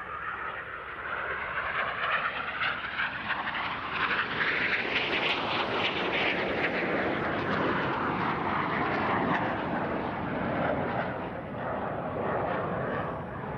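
Aermacchi MB-339 jet trainer's single turbojet flying past. The noise grows to its loudest about five seconds in, with a sweeping whine, then eases somewhat toward the end.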